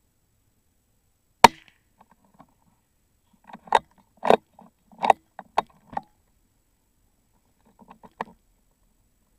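A single sharp report from a .22 LR rifle shot at a rabbit, about one and a half seconds in. It is followed by a run of about six sharp clicks and knocks between three and a half and six seconds in, and a few faint clicks near the end.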